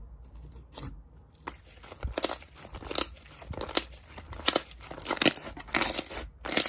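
Slime being pressed and worked by hand, giving off irregular crinkling and crackling pops that grow busier after about two seconds.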